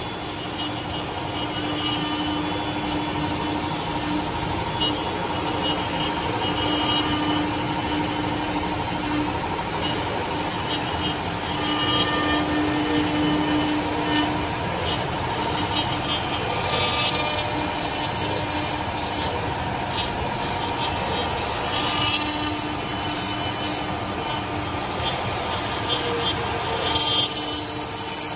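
Four-axis CNC wood lathe running and cutting wood: the turning cutters and the engraving spindle working the spinning wooden blanks give a steady machine drone with cutting noise. A held tone runs through the first half and drops out about halfway, and light crackles come and go.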